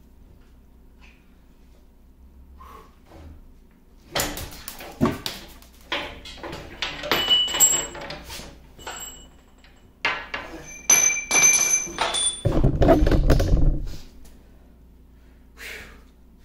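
Repeated metal clanks and knocks as the steel drive rod of a 1950 LeBlond Regal lathe is yanked against a stuck collar and popped out of its safety clutch, with short ringing metallic clinks of small parts flying. A loud low rumbling thud lasting over a second comes near the end.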